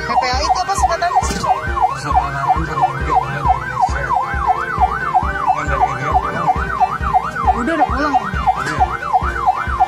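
Ambulance siren in a fast yelp, its pitch rising and falling about three times a second.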